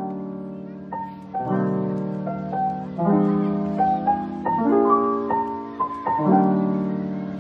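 Background piano music: low chords struck about every second and a half under a higher melody line.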